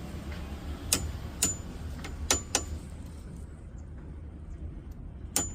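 Light hammer taps on a punch driving out a stuck brake pad retaining pin in a Jaguar XJ-S front caliper, each strike a sharp metallic click with a brief ring. Four taps come in the first three seconds and another near the end.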